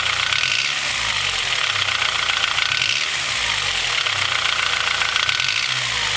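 Honda H22 four-cylinder engine idling cold with piston slap: a steady, rapid knocking over the running engine. The slap comes from Mahle Gold Series pistons with slightly too loose piston-to-wall clearance.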